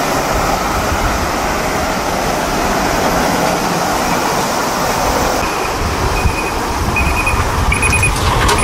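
Tractor-trailer truck (a Mitsubishi Fuso tractor unit hauling a container trailer) driving past: steady diesel engine rumble and tyre noise on the road. A run of short, high beeps sounds in the second half.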